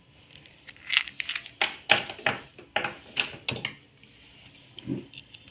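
Small metal screws clicking and clinking as they are picked through by hand. There is a quick run of sharp clicks in the middle and a few more near the end.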